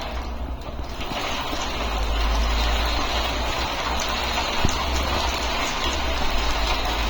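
Bicycle with a new Shimano 8-speed internal gear hub in motion: a steady rush of noise with a heavy low rumble on the microphone, and a few faint ticks. The new hub is creaking.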